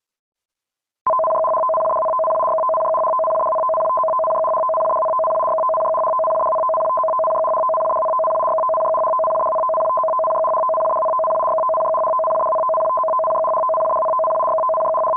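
Japanese emergency warning broadcast (EWBS) signal: a loud, continuous warbling beep rapidly switching between two pitches, starting about a second in. It opens an emergency broadcast, here a tsunami warning.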